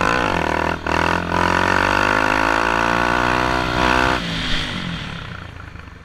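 Honda XRE 300's single-cylinder four-stroke engine accelerating hard, its note climbing, with two brief breaks about a second in as gears are shifted. A little after four seconds the throttle is closed and the engine drops to a quieter, fading run as the bike coasts.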